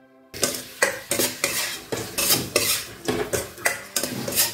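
A steel spoon scrapes and clatters against a stainless steel kadai as chopped goat liver is stirred, in quick repeated strokes of about four a second that begin a moment in.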